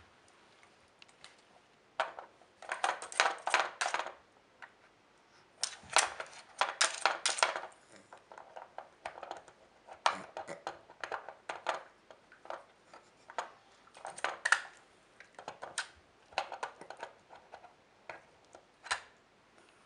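Hard plastic pieces of a Trixie level 2 strategy-game dog puzzle board clicking and clattering as a dog noses and paws at its lids and cone. It comes in two quick rattling runs in the first half, then as scattered single clicks.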